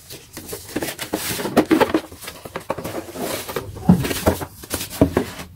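Hands handling a cardboard box and a tray of clear plastic organiser boxes: irregular knocks, taps and rustling, with a sharper knock about four seconds in.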